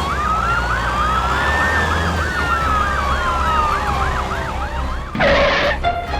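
Emergency-vehicle sirens sounding together: a fast yelp warbling about three times a second over a slower wail that rises and falls. About five seconds in, a short loud burst of noise cuts across them.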